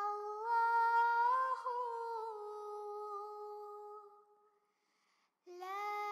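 A solo high voice humming a slow melody in long held notes that slide from one pitch to the next. It fades out about four and a half seconds in, and a new note begins near the end.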